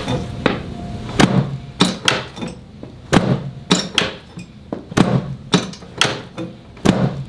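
A quick, steady series of sharp knocks, about two a second, from percussive chiropractic work on the patient's lower back.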